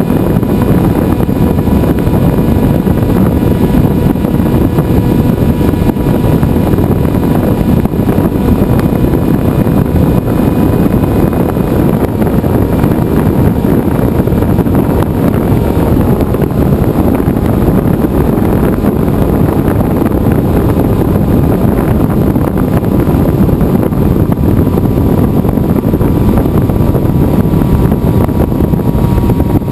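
Onboard sound of a Venturi FPV flying wing in flight: the electric motor and propeller whining steadily under loud wind rush over the camera's microphone. The whine shifts slightly in pitch near the end.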